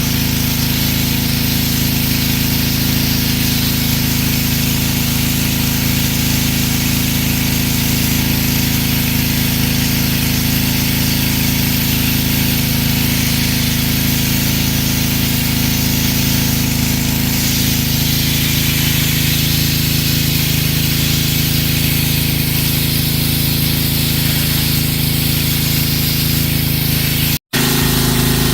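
Pressure washer running steadily: a small engine's even hum under the hiss of the water spray. It drops out for an instant near the end.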